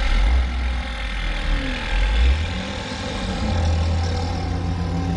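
Excavator engine running steadily with a deep rumble.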